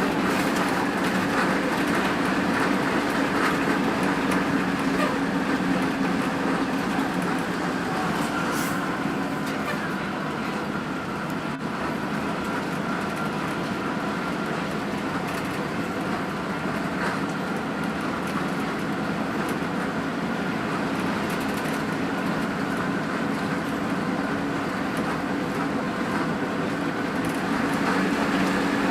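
Hino RN285 coach's diesel engine running steadily under way, a constant drone with a steady higher whine, easing slightly for a few seconds about a third of the way in.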